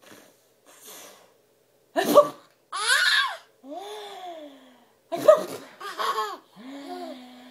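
A woman sneezing and a baby laughing in response, in short giggling bursts that come twice.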